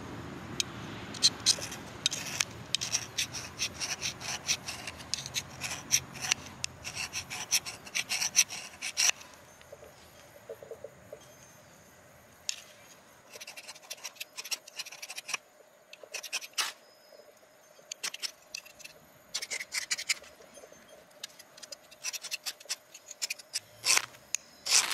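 A metal clip scraped hard down a ferrocerium fire-starter rod to throw sparks onto tissue: quick rasping strokes in clusters, with short pauses between tries.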